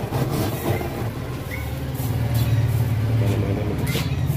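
An engine running steadily with a low, rapidly pulsing hum, growing louder about two seconds in.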